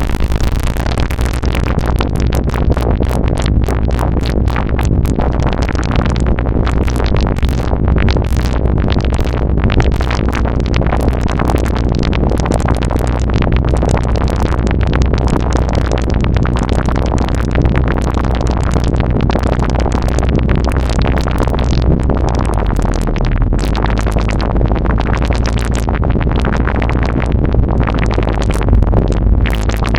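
Serge modular synthesizer patch making a synthesized water and liquid effect: a dense, irregular stream of quick blips and clicks over a steady low hum.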